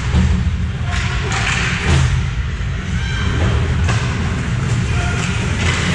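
Ice hockey game sounds in a rink: a steady low rumble with scattered knocks and thumps, and distant voices.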